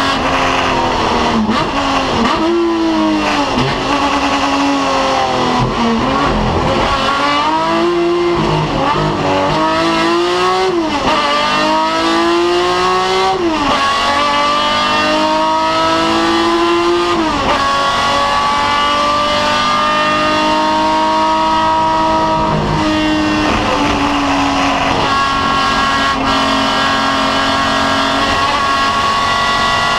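BMW 3.0 CSL racing car's straight-six engine heard from inside the car, pulling hard through the gears: the pitch climbs in long sweeps and drops sharply at each gear change or lift, several times over.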